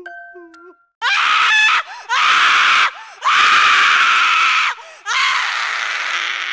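Animated Halloween scissor-lift prop shrieking through its speaker as it lunges up: four long, harsh screams from about a second in, with short breaks between them.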